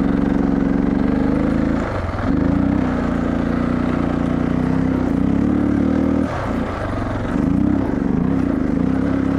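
Suzuki DR650's single-cylinder four-stroke engine pulling hard under load on a dirt hill climb, its revs held high. The revs dip briefly about two seconds in and again just after six seconds, then rise and fall several times near the end.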